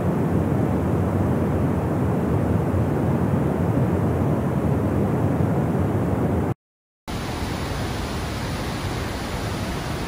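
Steady roar of rushing water from the Rhine Falls. It cuts out for about half a second about six and a half seconds in, then goes on a little quieter.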